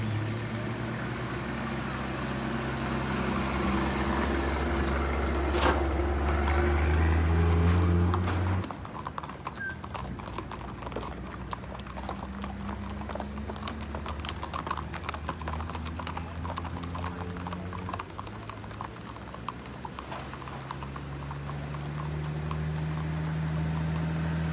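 Horses' hooves clip-clopping at a walk on a road as a file of ridden horses goes by. Under them runs a steady low hum that holds its pitch for several seconds at a time and then shifts, dropping suddenly about a third of the way in.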